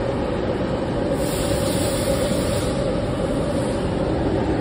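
A forced-draught furnace burner running: a steady, even rush with a low hum from its blower and flame.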